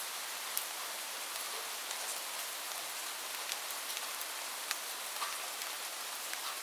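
Light, steady rain: an even hiss with scattered individual drops ticking sharply on a surface.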